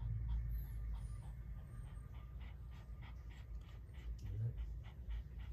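Toy poodle in labour panting rapidly, about three quick breaths a second, with one brief faint whine about four seconds in.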